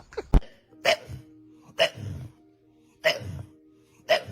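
Dog hiccuping: four short, sharp hiccups about a second apart.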